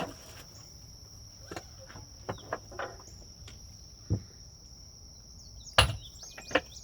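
Steady high-pitched insect chirring, with a few scattered knocks and one sharp knock near the end, the loudest sound here.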